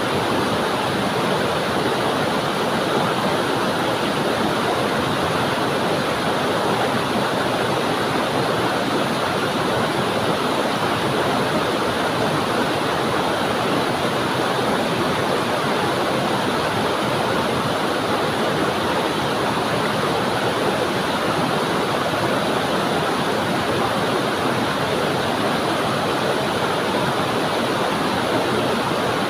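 Waterfall: water pouring onto rocks and flowing away, a steady rushing with no break or change.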